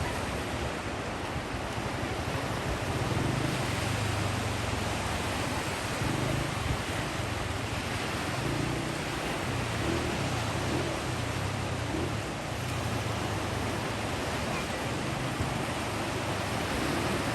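Sea waves washing ashore: a steady surf hiss with a low rumble underneath.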